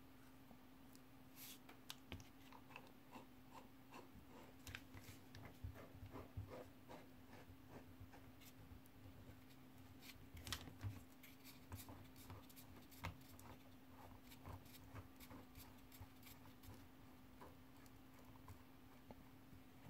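Faint, irregular clicks and light metal taps from hand-assembling a Sachs Torpedo Jet hub: the bearing cone being turned down the threaded axle onto its caged ball bearings. A faint steady hum runs underneath.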